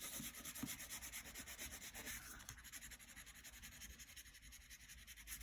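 Crayon rubbing back and forth on paper in quick, even strokes, colouring in a sky.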